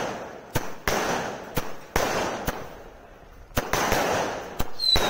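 Aerial fireworks bursting overhead: a string of sharp bangs, roughly one every half second to second, each followed by a fading crackle of sparks. Near the end a high whistling tone starts, falling slightly in pitch.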